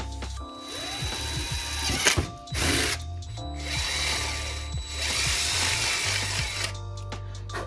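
Cordless drill boring a hole through a plastic speaker bracket for the speaker wire, running in two spells with a short stop about three seconds in.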